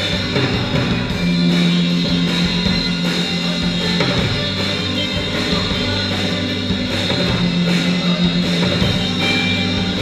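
A live rock band playing an instrumental passage: a drum kit keeping a steady beat under electric guitar and held low notes that change every couple of seconds.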